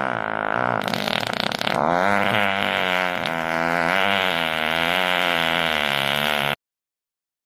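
Long fart sound effect: a drawn-out, pitch-wavering blat with a sputtering stretch about a second in, cutting off abruptly near the end.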